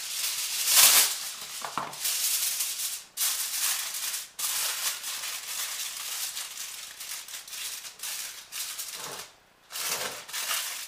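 Aluminium foil crinkling: pulled off the roll, loudest about a second in, then rustled and pressed as it is wrapped around a loaf tin, with a short pause near the end.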